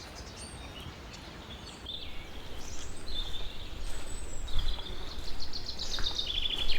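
Birds calling in the forest, short high whistles with a rapid trill near the end, over a steady low rushing background noise that grows louder about two seconds in.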